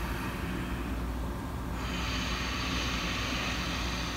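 Ujjayi breathing through the nose: a soft, throaty hiss from a slightly narrowed throat, which grows brighter and stronger about two seconds in.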